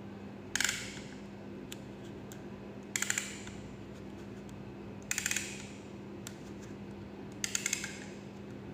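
Disposable endoscopic linear cutter stapler being fired: four bursts of quick mechanical clicks about two seconds apart, one for each squeeze of the firing trigger as the knife and staples advance a further stretch along the cartridge.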